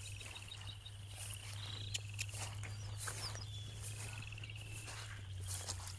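A high, rapid pulsed trill from a calling animal, repeated in bouts of one to two seconds, over a steady low hum, with a few soft knocks of footsteps on wet ground.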